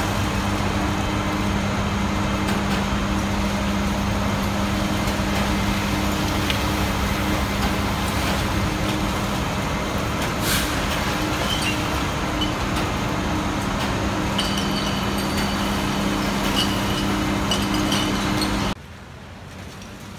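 Transfer trailer unloading trash: truck engine and unloading machinery running steadily with a low hum. Near the end the noise drops suddenly to a quieter background.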